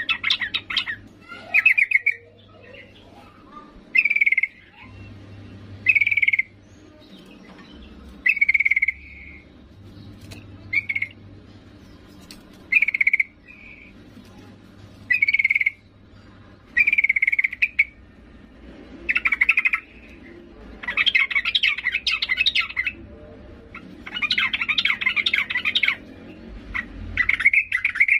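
A yellow-vented bulbul, the female's call to males, giving short bubbly phrases about every two seconds. Near the end come two longer, busier phrases.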